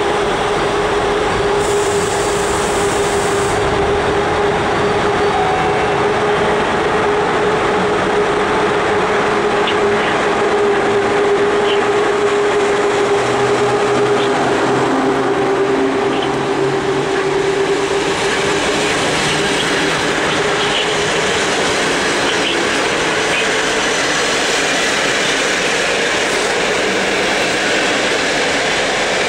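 EP08 electric locomotive departing with a passenger train and passing close at low speed, with a steady whine that fades out a few seconds after it passes. The coaches' wheels then roll steadily past on the rails.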